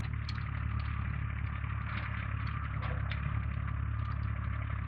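Small farm tractor engine running steadily as it pulls a ground-driven manure spreader, with faint scattered clattering over the low hum.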